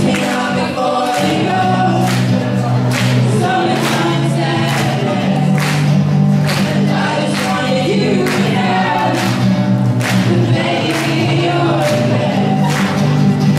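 A group of young voices singing together into microphones, accompanied by a strummed acoustic guitar.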